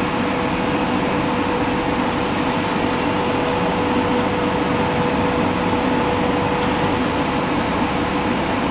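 Steady whirring machine hum with a constant whine running through it, and a few faint light clicks.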